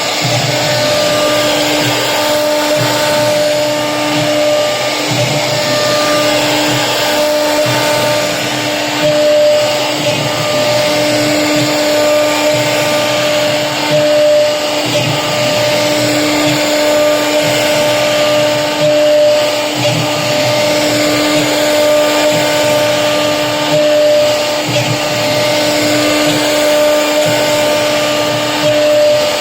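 CNC router spindle running with a steady high-pitched whine while its bit cuts an HDHMR (high-density moisture-resistant) board, with a rough cutting noise underneath that swells and eases as the bit moves through the material.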